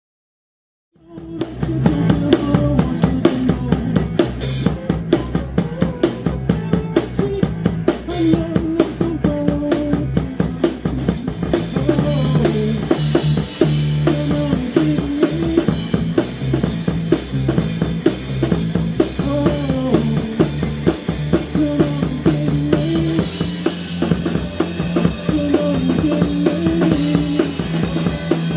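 A live band playing: drum kit keeping a steady beat, with electric guitars and bass guitar. The music comes in about a second in.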